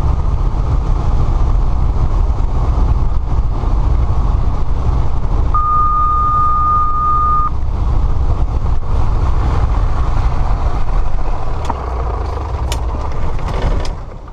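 Aircraft cockpit noise: a steady low rumble of engine and airflow, with a single steady beep lasting about two seconds near the middle and a few clicks near the end.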